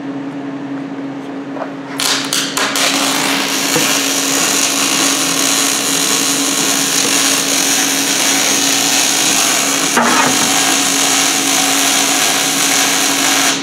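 MIG (gas metal arc) welding arc in short-circuit transfer on 14-gauge steel, struck about two seconds in with a few sharp crackles and then running steadily as the gun is dragged along a T-joint fillet with a whip-and-pause motion. A steady hum underlies it throughout.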